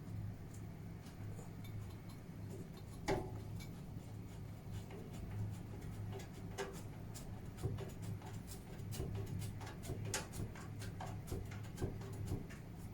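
A screwdriver tightening the screws that fix a graphics card's bracket to a PC case: scattered small metallic clicks and ticks, the sharpest about three seconds in, over a steady low hum.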